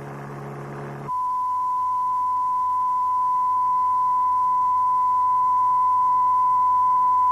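A low buzzing hum rich in overtones cuts off about a second in. It is replaced by a steady, high-pitched 1,000-hertz test tone, a pure beep that grows slightly louder. These are demonstration tones for learning to judge noise frequencies by ear.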